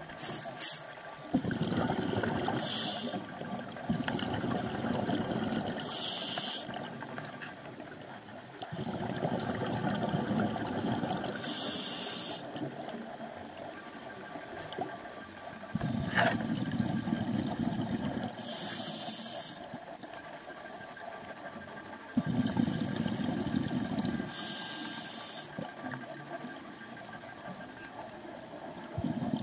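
Scuba diver breathing through a regulator underwater: a short hiss with each inhalation, then a longer stream of bubbling exhaled air, repeating about every five to six seconds, five breaths in all.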